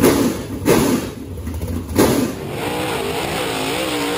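Carbureted Mullins race engine revved in three sharp blips at the throttle linkage. About two and a half seconds in, it gives way to race cars running on a dirt track, their engine note rising and falling steadily.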